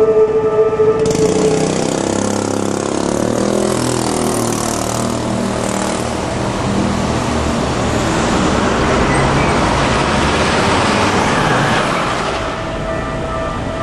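Keikyu Airport Line train passing over the level crossing. A horn note ends about a second in, then about eleven seconds of steady wheel-and-motor running noise follow and drop off near the end. After that the crossing's alarm tones stand out again.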